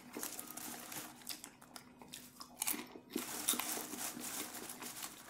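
Popped mushroom popcorn being chewed: a run of small, irregular crunches and crackles. Popped kernels also rustle in a wooden bowl as more are picked up.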